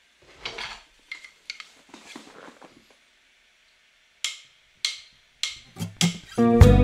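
Light handling of glass pipettes and glass wool with gloved hands: soft rustles, then a run of sharp clicks coming faster and faster. Acoustic guitar music starts just before the end.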